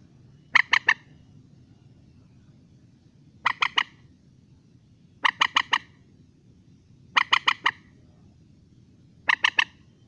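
Moorhen calling: five short bursts of three or four quick notes each, spaced a second or two apart.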